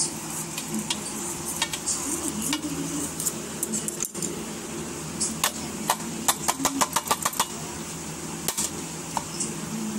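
Light clicks and taps of paper cups and cupcakes being handled on a stainless steel plate, with a quick run of about eight clicks in the middle, over a steady low hum.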